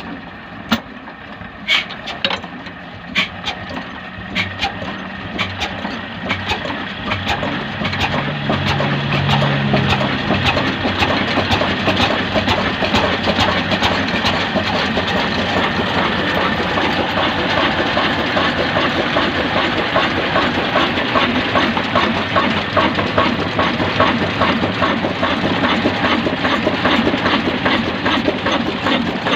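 Desi 'kala' slow-speed diesel engine (20 HP, 300 RPM) giving separate sharp chuffs about a second apart, then gathering speed and loudness over the next several seconds. It settles into steady running with a fast, even knocking beat.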